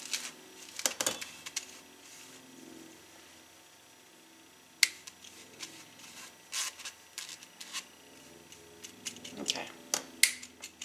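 Silicone spatula scraping and pushing dry ingredients through a wire mesh sifter, with irregular sharp clicks and taps of the sifter against the bowl. The scraping and clicking come in clusters, with a quieter stretch of a couple of seconds near the middle.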